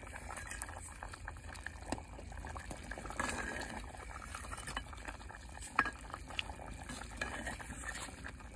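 Chicken curry bubbling in a pot over a wood fire while a metal ladle stirs it, scraping through the gravy, with a few sharper clinks against the pot about two seconds and six seconds in.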